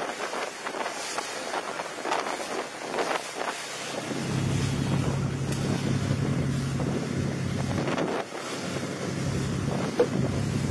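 Tour boat's engine running with a steady low hum under way, setting in about four seconds in, with wind buffeting the microphone throughout.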